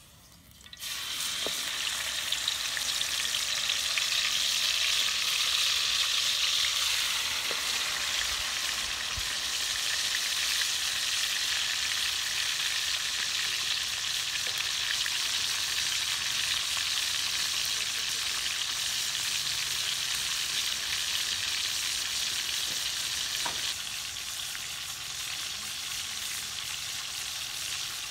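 Chicken leg quarters sizzling in hot oil in a steel wok. The sizzle starts suddenly about a second in as the raw meat goes into the oil, then holds loud and steady, easing a little near the end.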